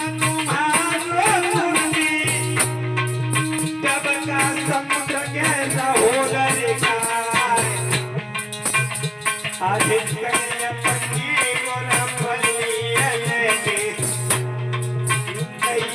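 Indian folk music of the kind that accompanies Aalha singing. A wavering melody plays over a low, stop-start bass note and drums, with a steady rattling, jingling percussion throughout.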